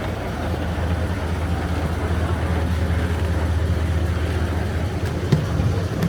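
A vehicle engine running, a steady low drone heard from on board, with one short knock about five seconds in.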